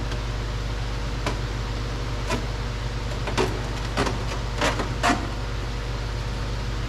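Scattered light clicks and knocks from hand tools and plastic door-handle parts being worked on a car door, about half a dozen over several seconds, over a steady low hum.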